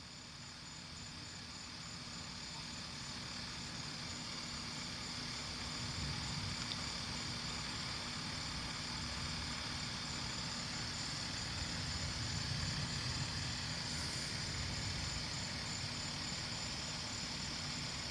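Night insects trilling steadily, a high, finely pulsing chirr over a hiss of insect noise, with a low rumble underneath. The sound swells over the first few seconds, then holds.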